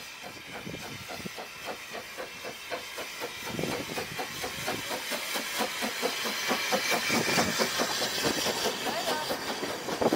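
Narrow-gauge steam locomotive pulling away with its train: quick, even exhaust chuffs over a steady steam hiss, growing louder as it passes close by, then the carriages rolling past near the end.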